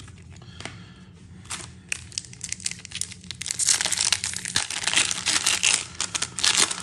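Plastic wrapper of a baseball card pack being torn open and crinkled by hand. The crackling starts faint, thickens about a second and a half in, and is loudest in the second half.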